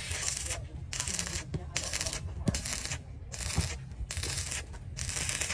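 Stick (shielded metal arc) welding on galvanized steel square tubing: the electrode's arc crackles and hisses in about half a dozen short bursts, each under a second, with brief breaks between them as the arc is struck and broken.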